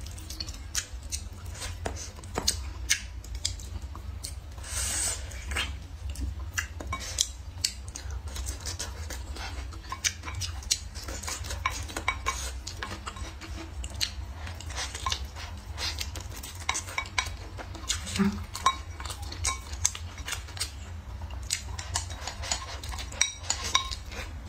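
Wooden chopsticks clicking and scraping against a ceramic bowl in many short sharp ticks while food is picked up and eaten, with close-up mouth and chewing sounds, over a steady low hum.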